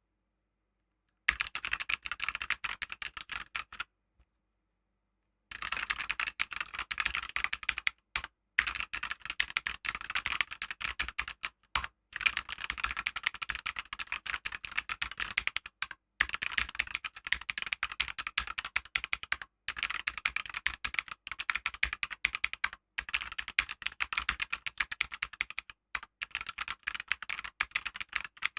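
Fast typing on a Keychron K2 V2 mechanical keyboard with Gateron Red linear switches: a dense, rapid clatter of keystrokes. It starts about a second in, pauses for about a second and a half around four seconds in, and has a few brief breaks later.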